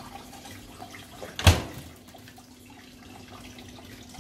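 A loud single bang about a second and a half in, with a short ring, as the hinged metal lid of a homebuilt vapor-blast cabinet is shut. A steady low hum and faint hiss run underneath.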